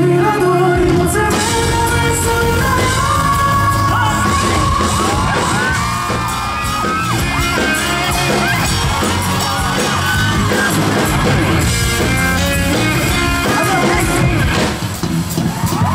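Live band music played loud through the PA, with fans screaming and yelling over it, most between about four and eight seconds in and again near the end.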